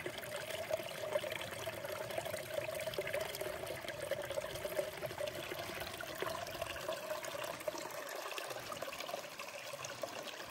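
Water running and trickling steadily, easing off a little near the end.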